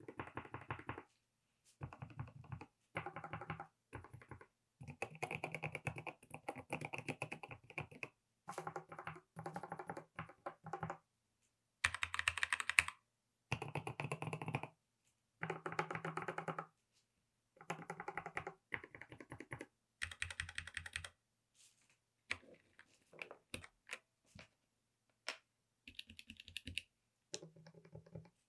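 Typing on a mechanical keyboard with Gateron switches: quick runs of keystrokes in short bursts with brief pauses between them, the loudest run about halfway through, and scattered single key presses near the end.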